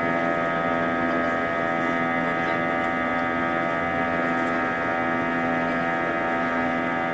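A steady mechanical hum made of several constant tones, holding an even pitch and level.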